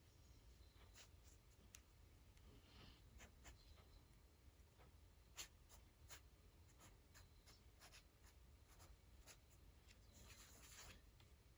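Faint scratching and ticking of a fine-tip ink pen on paper as lines are drawn: many short strokes, the sharpest tick about five and a half seconds in, and a longer scratchy stroke near the end.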